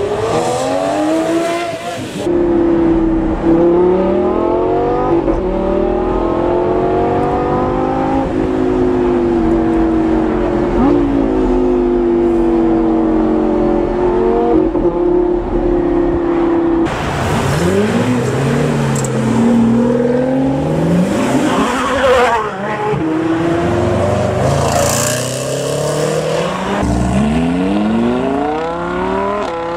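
Supercar engines revving and accelerating, in several cut-together clips. First a Lamborghini Murciélago SV's V12 revs. Then a long stretch from inside a car's cabin, the engine climbing through the revs and holding a steady pitch. From about two thirds of the way in, harder revving leads to a Lamborghini Huracán's V10 rising in pitch as it pulls away near the end.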